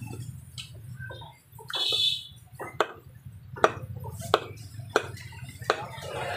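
Butcher's knife chopping lamb intestine on a wooden log block: about five sharp, separate knocks, starting a little before halfway.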